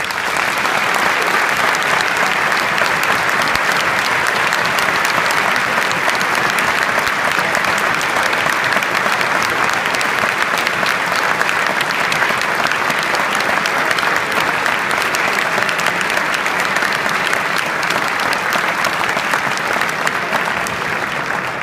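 A large audience applauding steadily: a dense, even clatter of many hands clapping.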